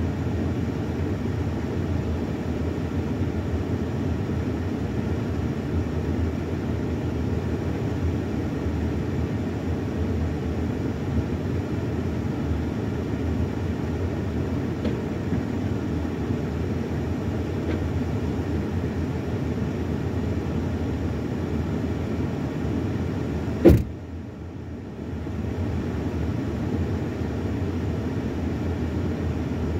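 Steady low rumble of a van's engine running, heard from inside the cabin. About two-thirds of the way through there is a single sharp click, and the rumble dips briefly before coming back.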